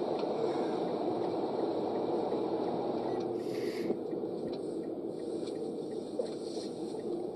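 Steady road and engine noise inside a moving car, heard from the cabin, with a short hiss about halfway through.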